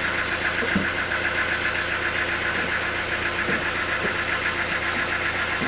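Engine of a homemade sawmill running steadily at an even speed, with a fast, even pulsing.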